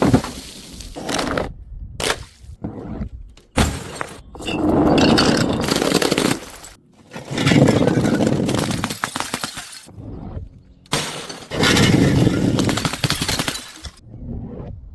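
Glass bottles smashing one after another: several short, sharp breaks in the first few seconds, then three long crashes of shattering glass with shards scattering and tinkling as each dies away.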